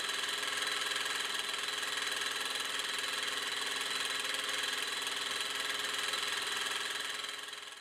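Pressurized rhombic-drive Stirling engine running steadily, a dense mechanical whir with a high steady whine on top; it fades out near the end.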